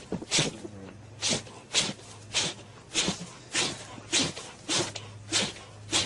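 A bear cub makes short hissy bursts of sound in a steady rhythm, about one every 0.6 seconds, some ten in all.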